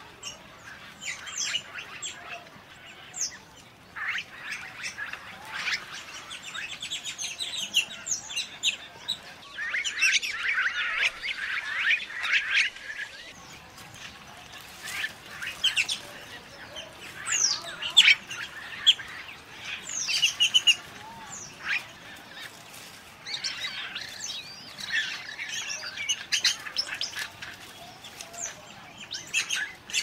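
Wattled starling calling: a stream of short squeaky chirps and whistled notes in bouts with brief pauses, busiest about ten to thirteen seconds in.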